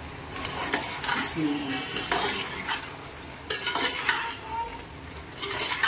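Metal ladle stirring and scraping around a large metal pot of chicken, yogurt and spice powders, in several bouts, mixing the masala in.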